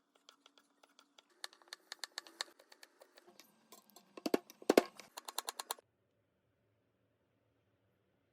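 A rapid, irregular run of sharp clicks and taps, with two louder knocks about four and a half seconds in, stopping abruptly about six seconds in and leaving only a faint low hum.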